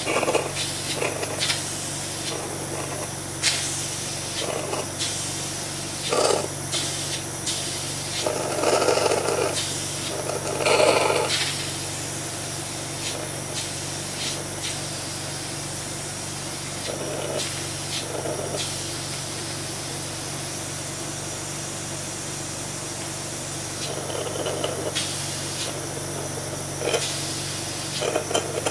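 Steady mechanical hum of equipment with short intermittent bursts of rustling and clicking handling noise, the loudest about 8 to 11 seconds in.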